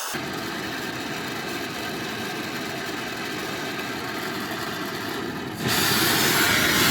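Oxy-acetylene torch flame running steadily as it melts a weld puddle onto a seized oil pan bolt; about five and a half seconds in the hiss turns louder and brighter.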